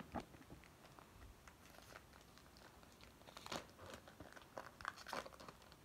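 Faint rustling and light clicks of hockey trading cards being handled and flipped through, with a couple of slightly sharper ticks about halfway and near the end.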